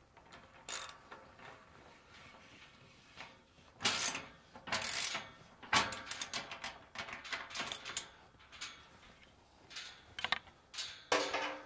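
Steel gate hinge and bolt-hook hardware being handled: irregular metal clicks, rattles and scrapes, loudest about four to six seconds in.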